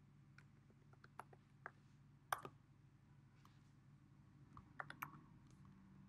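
Faint computer keyboard keystrokes as a password is typed in: irregular single key clicks, a few about a second in, the loudest just after two seconds, and a quick run of several near five seconds.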